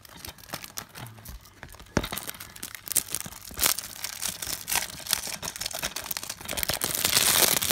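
Plastic wrapping on a DVD case being crinkled and torn off, with scattered crackles and a longer, louder stretch of tearing near the end.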